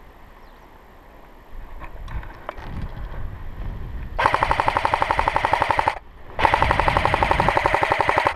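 AK-style airsoft rifle firing on full auto: about four seconds in, two long bursts of about two seconds each, separated by a short pause, each a fast, even rattle of shots.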